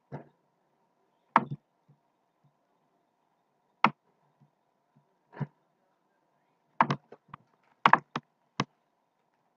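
Sharp clicks and knocks from computer mouse and keyboard use, single ones every second or two and then quick clusters of several clicks near the end, over a faint steady hum.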